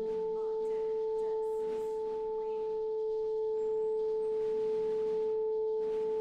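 One long, steady, pure-sounding note held unbroken in a chamber-ensemble piece, with a faint tone an octave above it and only soft scattered sounds beneath.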